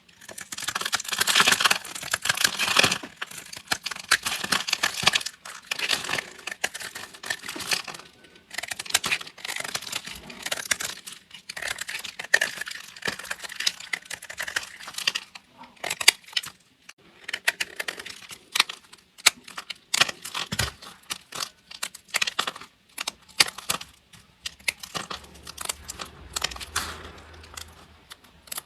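Knife cutting through a bar of dry, crunchy soap: a dense crackling crunch that comes in bursts with short pauses between them. The crunch is loudest in the first three seconds.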